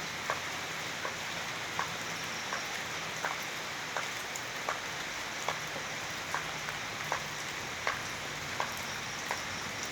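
Steady rain hiss, with a single drip falling regularly about every three quarters of a second.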